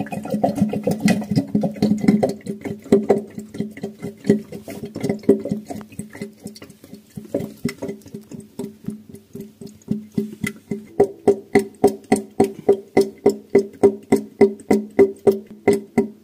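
Kitchen sink drain gurgling: a hollow, pitched glugging as air bubbles back up through the trap. The pulses are uneven at first, then settle about ten seconds in into a quick, regular run of two to three glugs a second. This gurgling is typical of a drain short of air venting.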